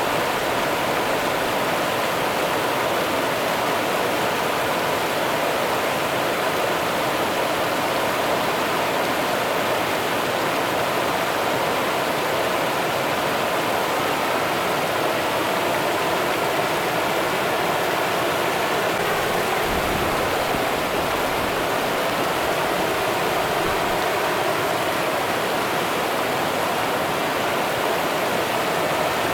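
River water running in a steady, even rush.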